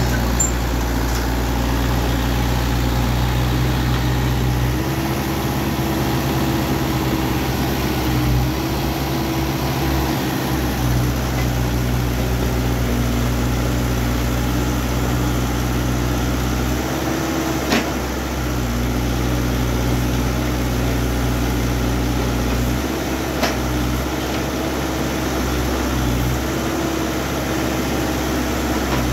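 Kubota U50 mini excavator's diesel engine running while the boom and bucket are worked, its note shifting every few seconds. Two short sharp knocks come in the second half.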